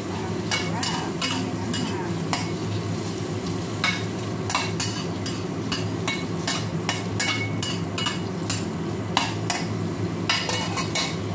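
Shrimp frying in a stainless steel pan while a spatula stirs them, scraping and clicking irregularly against the pan, over a steady low hum.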